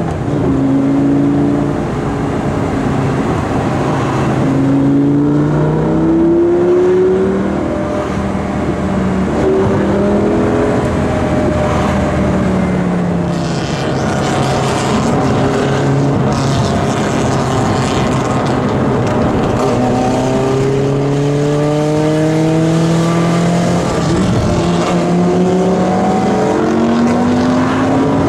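Lamborghini Gallardo's V10 engine heard from inside the cabin, accelerating hard through the gears. Its pitch climbs steadily in each gear and drops back at each upshift, several times over.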